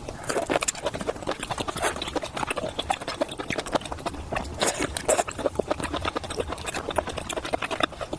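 Close-miked eating sounds of a person chewing seafood: a dense, irregular run of wet clicks and smacks from the mouth.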